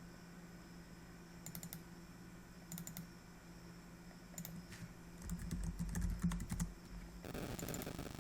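Computer keyboard typing in short bursts of keystrokes. A louder low rumble comes in about five seconds in, and a steady hiss starts near the end.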